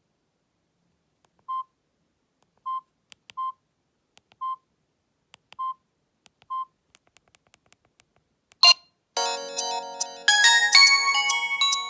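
Samsung GT-E1080W mobile phone: six short keypad beeps at one steady pitch, then a few faint clicks. Near the end a ringtone melody starts playing through the phone's speaker and grows louder a second later.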